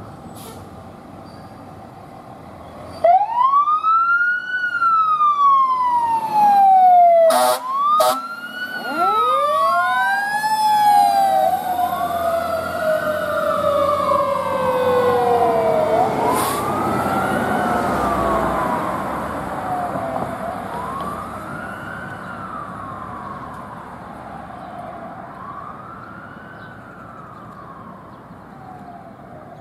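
Fire engine sirens start about three seconds in: a siren wailing up and down every few seconds, and a Q mechanical siren that winds up and then slowly coasts down in pitch. Two short air-horn blasts come about seven to eight seconds in. The sirens then fade as the engine drives away.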